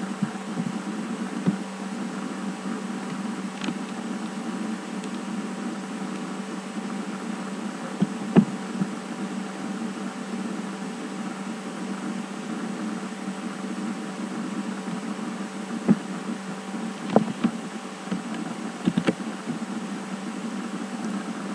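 Steady low hum and hiss of room tone picked up by the recording microphone, with a few scattered sharp clicks about eight seconds in and again near the end.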